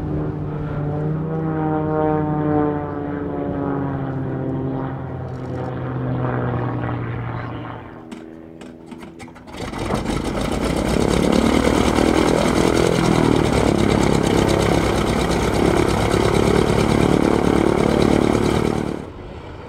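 Propeller engines of two aerobatic biplanes in flight, their pitch slowly falling as they pass. After a short quieter gap, the radial engine of a vintage biplane runs loud and steady close by, then cuts off.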